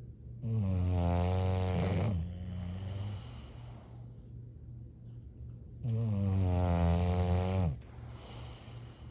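Sleeping bulldog snoring: two long, loud snores about five seconds apart, each close to two seconds long, the first trailing off into a softer breath.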